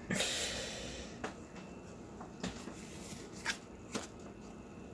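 Football trading cards being handled and flipped through by hand: a sliding rustle in the first second, then four short crisp flicks.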